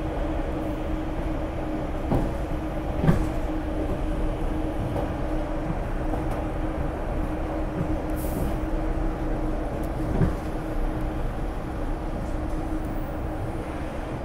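MBTA Red Line subway train running, heard from inside the car: a steady rumble with a constant motor hum and three sharp clanks, the loudest about three seconds in.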